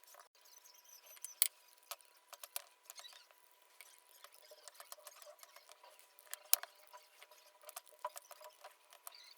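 Irregular light clicks and taps, a few sharper than the rest, over a faint steady tone.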